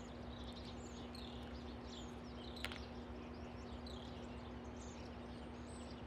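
Faint chirping of small birds in the background over a steady low hum, with a single light click about two and a half seconds in.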